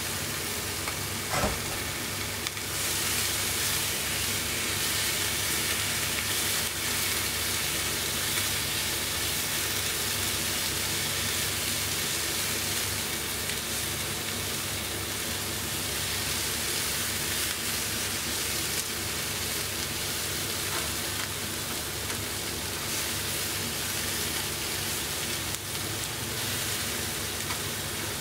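Food sizzling steadily in a hot frying pan as a stir-fry cooks, with one sharp knock about a second and a half in.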